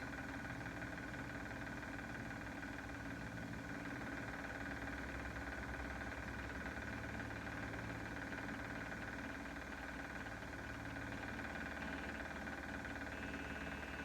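A steady mechanical hum with several constant tones, running evenly throughout.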